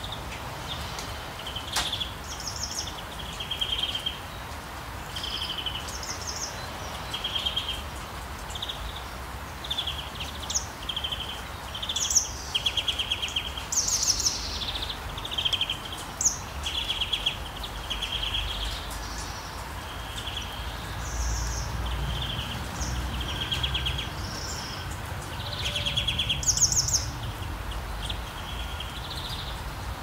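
Small songbirds singing: short chirping and trilling phrases repeated every second or so, the loudest high trills near the middle and again near the end, over a steady low rumble.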